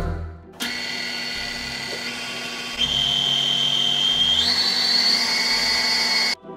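Electric stand mixer running as it beats chocolate cake batter. Its motor whine steps up in pitch twice as the speed lever is pushed higher, then cuts off just before the end.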